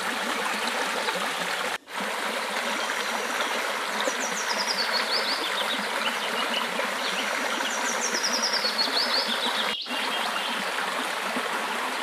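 Small forest stream running over rocks: a steady rushing trickle. Twice, a high series of short chirps falls in pitch over a couple of seconds, and the sound drops out for an instant twice.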